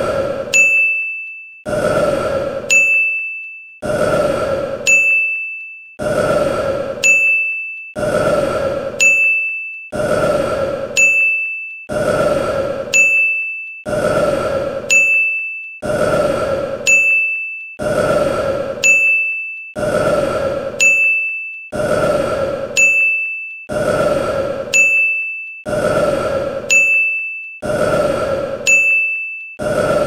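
A man's loud burp, played on a loop so that it repeats about every two seconds. Each burp starts suddenly and fades out over about a second and a half, and a brief high steady tone follows it.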